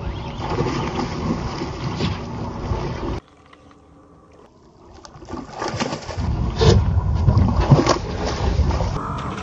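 Outdoor rumble with wind on the microphone over open water, which cuts off suddenly about three seconds in and leaves a quieter stretch. It then builds again into the loudest part, with a couple of sharp splashes, as a snakehead strikes a topwater frog lure in the weeds.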